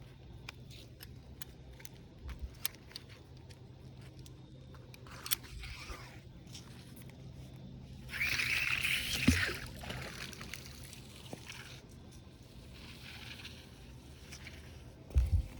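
Water sloshing and splashing, loudest in one burst of about two seconds near the middle, with scattered small clicks and a couple of low thumps.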